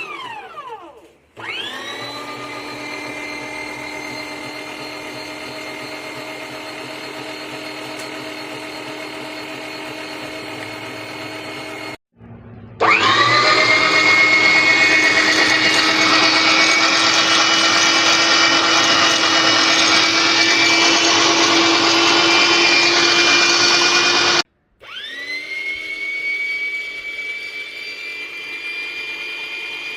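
Electric motor of a Dessini 3000W meat grinder and blender appliance, run in three bursts with a steady whine. It winds down at the start, then spins up with a quick rise in pitch about a second and a half in. It cuts off near twelve seconds, runs again louder for about twelve seconds, stops, and spins up once more near the end.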